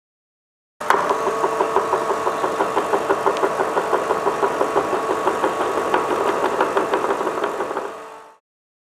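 Hydraulic pump unit of a steam-weeder prototype test rig running with a steady hum and a rapid knocking pulse, about five or six beats a second. It starts suddenly about a second in and fades out near the end.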